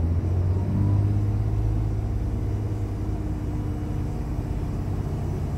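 Setra S 416 GT coach's Mercedes-Benz OM457 inline-six diesel pulling away and driving, heard from inside the passenger cabin as a steady low drone. The engine note steps up about a second in, then holds.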